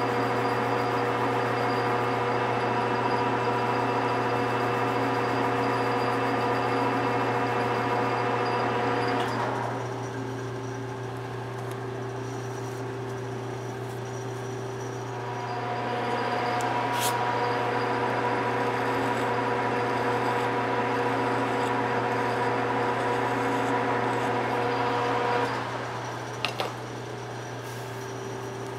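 A shop machine running with a steady hum and a harsher working noise on top. The harsher noise drops out about nine seconds in, comes back around fifteen seconds, and stops again near twenty-six seconds, with a couple of sharp clicks.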